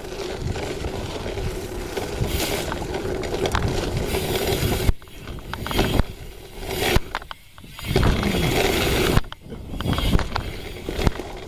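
Mountain bike ridden fast over a trail of dry fallen leaves, a steady rush of tyre and leaf noise for about five seconds. Then the noise turns uneven, with sudden surges, dropouts and sharp knocks, as the bike goes down in a crash.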